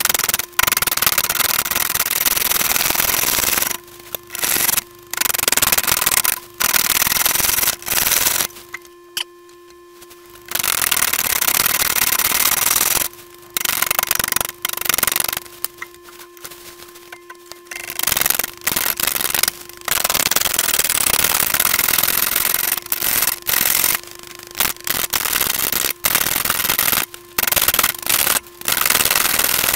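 A roughing gouge cutting a large green-wood blank spinning on a lathe: a loud, rough hiss of the tool shearing wood, broken by many short gaps. There are two longer pauses, about a third of the way in and just past halfway, when the tool comes off the wood and only the lathe's steady motor hum is left.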